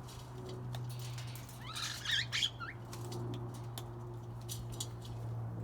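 Parrots giving a brief burst of short chirping calls about two seconds in, with scattered light clicks and a steady low hum underneath.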